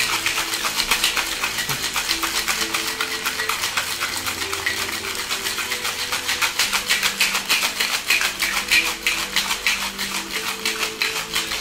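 Ice rattling hard in a cocktail shaker shaken vigorously in a fast, even rhythm, mixing gin, lemon juice and simple syrup for a French 75; the rattling stops abruptly at the end.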